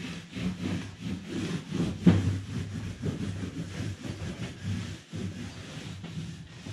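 A PVC pipe offcut being rolled and rubbed back and forth over freshly glued carpet on a board, pressing it down: an uneven scraping rumble of strokes, with a sharp knock about two seconds in.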